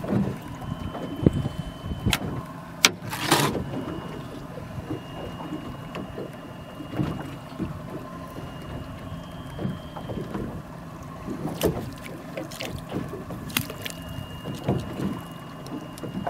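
Water lapping and slapping against the hull of a small fishing boat sitting on open water, with a little wind and several sharp knocks and clicks, the longest about three seconds in. A faint high tone comes and goes.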